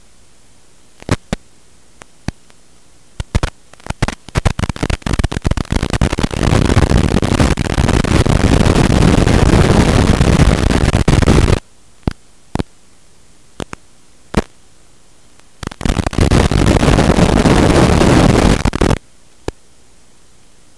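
Static on the audio of an analog FPV video receiver: a steady hiss broken by scattered sharp clicks, then a long stretch of loud, harsh crackling static a few seconds in and a shorter one near the end, as the drone's video signal breaks up.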